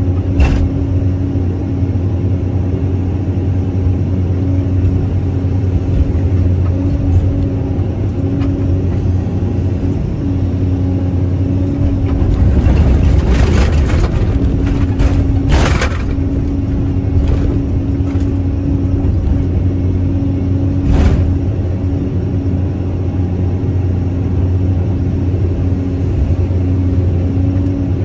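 Caterpillar 320C excavator's six-cylinder diesel engine running steadily under hydraulic load, heard from the operator's cab. Partway through it labours louder for a few seconds, with scraping and a couple of sharp knocks as the bucket digs into the dirt.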